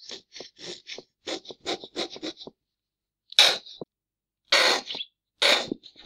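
Squeeze bottle of ketchup farting as it is squeezed: a quick run of about a dozen short sputters, then three longer, louder splutters, the first of them the loudest.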